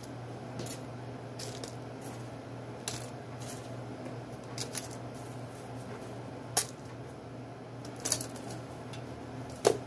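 Hands crumbling hard chunks of caked white powder onto aluminium foil: scattered crisp crunches and small pieces clicking onto the foil about once a second, the sharpest about six and a half seconds in. A steady low hum runs underneath.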